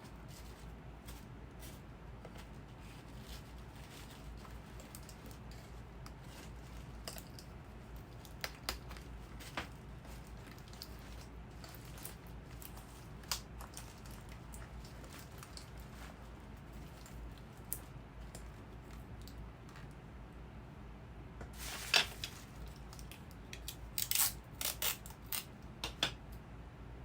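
Light handling noises as gift-basket items are moved and set in place: scattered soft clicks and rustles over a steady low hum, with a louder flurry of crinkly taps near the end.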